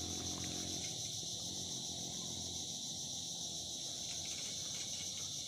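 Insects chirring steadily in grass, a constant high-pitched drone with no breaks.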